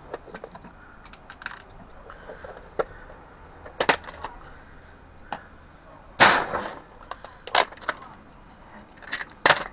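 Irregular sharp clicks and knocks of plastic and metal parts being handled and pried apart while dismantling a CD/DVD drive, the loudest knock about six seconds in.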